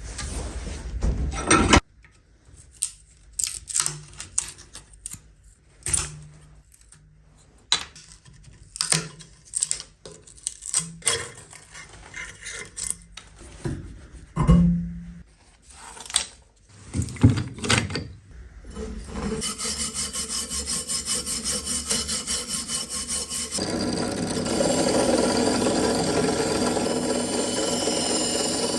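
Hand abrading of a rusty steel cleaver blade. It starts as scattered short scrapes and knocks. About two-thirds of the way in it becomes a steady, fast rasping rub, which grows louder shortly after.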